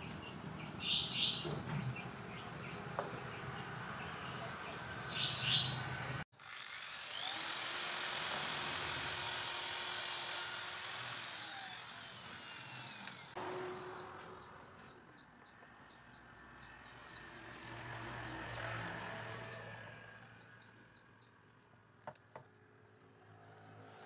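Electric hand drill drilling into the cage's wooden top board. It starts about six seconds in, runs steadily with a high whine for about five seconds, and then winds down.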